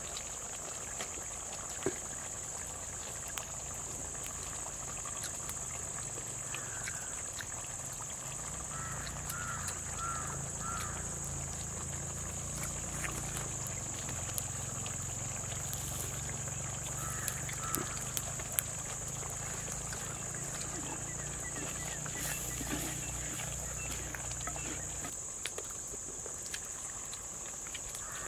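Wood fire crackling under a clay pot of simmering chicken curry, with a steady high insect drone and a few bird chirps. A low rumble runs underneath and stops about 25 seconds in.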